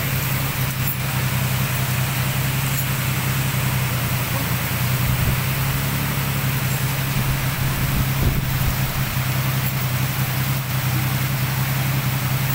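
Heavy rain falling steadily, with a steady low hum underneath.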